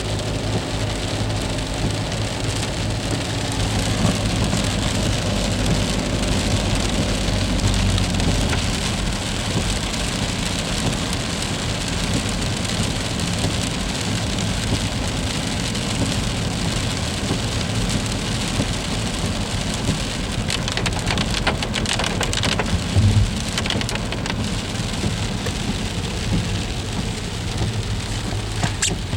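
Steady freezing rain falling during an ice storm, an even hiss of precipitation over a low steady hum. A cluster of sharp clicks and cracks comes about two-thirds of the way through, and one more near the end.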